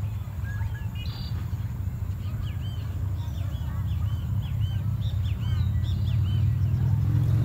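A low engine rumble that grows louder toward the end, with small birds chirping over it and a quick run of repeated chirps near the middle.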